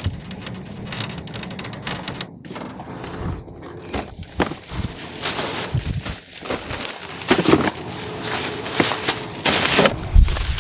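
Thin plastic shopping bags rustling and crinkling in irregular bursts as they are lifted out of a shopping cart and loaded into a car.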